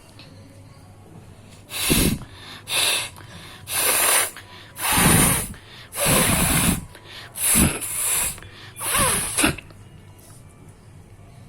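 A person blowing a congested, runny nose hard: about seven forceful, noisy blasts of air, some short and some lasting about a second, bringing out a lot of mucus.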